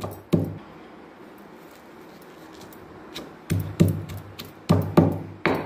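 Stone pestle pounding a wet paste of roasted green chillies, garlic and coarse salt in a stone mortar, dull thuds. One strike, a pause of about three seconds, then five strikes in quick succession.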